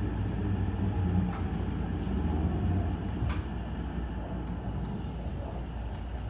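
Hankyu Takarazuka Line train running: a steady low rumble with a few sharp clicks, easing off slightly in the second half.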